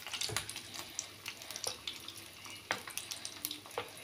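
Batter-coated chicken drumsticks deep-frying in hot oil: a steady sizzle with scattered crackling pops.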